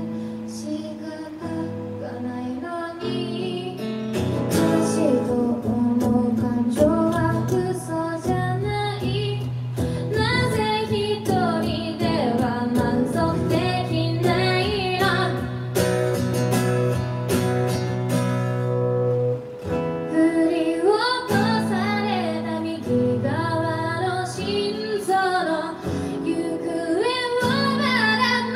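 A woman singing a slow song, accompanying herself on a strummed acoustic guitar.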